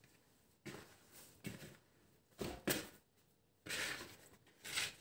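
A series of short rustles and scrapes from a plastic mixing bowl being handled and tipped over on a countertop as risen yeast dough is turned out of it.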